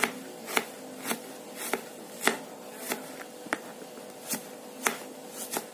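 Knife slicing shallots on a cutting board, a steady run of sharp cuts at nearly two a second.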